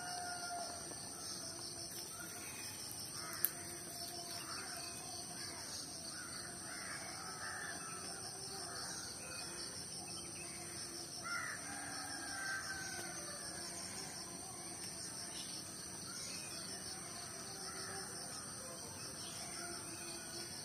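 Birds calling again and again in the background over a faint, steady high-pitched whine, with one sharp click about three and a half seconds in.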